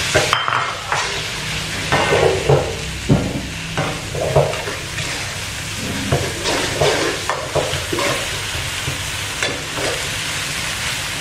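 Ground spice paste frying in hot oil in a wok, sizzling steadily, while a metal spatula scrapes and knocks against the pan about once or twice a second as the paste is stirred.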